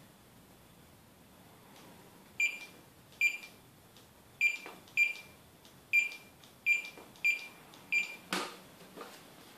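Handheld barcode scanner beeping as it reads battery module serial codes, each short high beep marking one successful read. There are eight beeps at uneven spacing, then a dull thump near the end.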